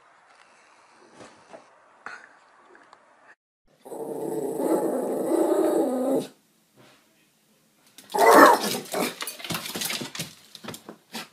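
Animal sounds from short clips cut together: a faint stretch, then a loud sound lasting about two and a half seconds that cuts off abruptly, then a second loud stretch with many sharp clicks and knocks near the end.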